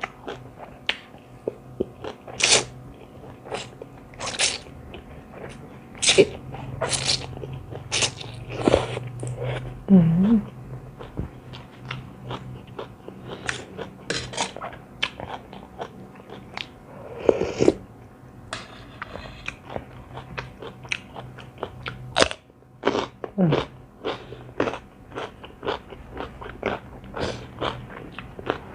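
Close-miked eating: crunching bites and wet chewing of a spicy rice-noodle salad with crisp raw vegetables such as long beans, in irregular sharp crunches one after another.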